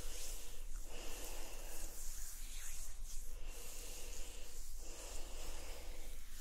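Oiled hands rubbing in slow massage strokes, a slick hissing rub a little over a second long, repeated with a brief pause between strokes.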